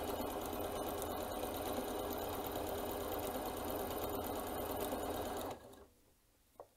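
Janome C30 sewing machine running steadily as it stitches through fabric, then stopping about five and a half seconds in, followed by a single light click.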